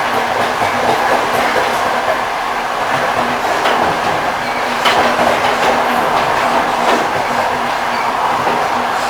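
Railway carriage wheels clacking over the rail joints of a moving train, a steady running rumble with a few sharper clacks at uneven intervals and a steady low hum underneath.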